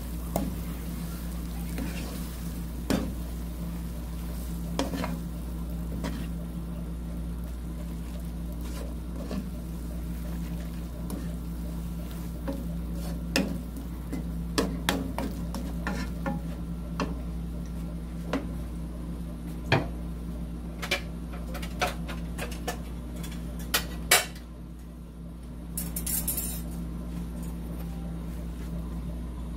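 Wooden spatula stirring stir-fried seaweed stems in a nonstick frying pan, with irregular knocks and scrapes against the pan over a steady low hum.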